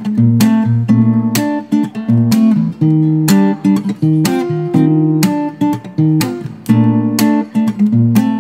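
Background music: an acoustic guitar playing an instrumental passage, strummed chords and picked notes about once a second, without singing.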